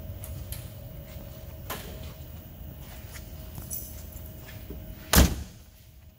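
The door of a 1969 Chevrolet Camaro being swung shut: one loud thump about five seconds in, over a steady low background hum.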